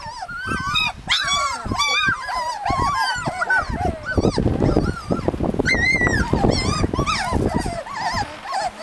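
A litter of husky puppies whimpering and squealing together, many short, high-pitched whines rising and falling over one another, with low scuffling noise strongest through the middle.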